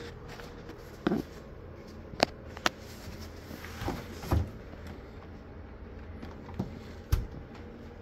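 A handful of separate clicks and knocks, some sharp and some duller thuds, over a faint steady hum in a small room.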